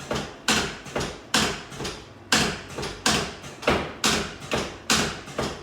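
Rapid series of sharp thumps, about two to three a second, from a chiropractic adjusting device worked under the patient's chest.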